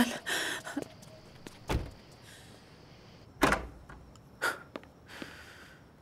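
Car door handling: a few dull thuds, the loudest about three and a half seconds in, with softer rustling between them.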